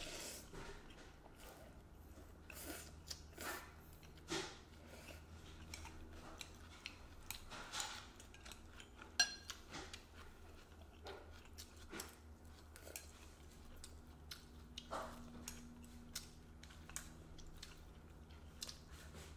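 Eating at a table: a slurp of rice-noodle soup at the start, then scattered chewing and small clicks of chopsticks and spoons against ceramic bowls. The sharpest click comes about nine seconds in. A low steady hum runs underneath.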